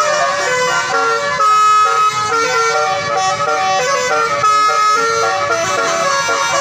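Telolet horn, a multi-trumpet air horn, playing a quick tune, with several notes sounding together and changing pitch every fraction of a second.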